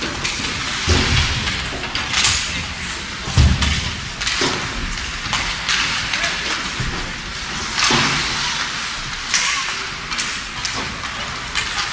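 Ice hockey game in play: scattered sharp clacks and a couple of heavier thuds, typical of sticks, puck and bodies hitting the boards, over steady rink background noise.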